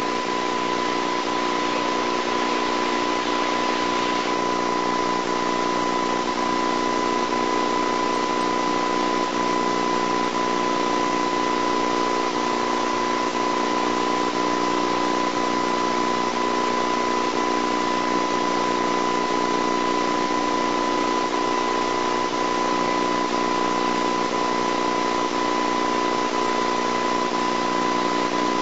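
Steady recording noise with no other sound: an even hiss, a constant high whistle tone and a low electrical hum.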